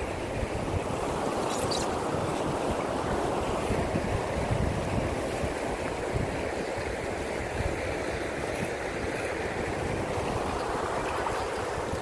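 Mountain river water rushing steadily over rocks and small rapids.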